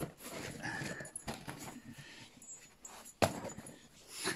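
A greyhound shifting about on a duvet, the bedding rustling with small scuffs and clicks, and one sharp knock a little after three seconds in.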